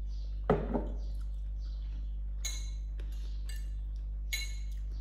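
Cutlery clinking against a plate or bowl while eating, with a louder knock about half a second in and a few sharp clinks later, over a steady low hum.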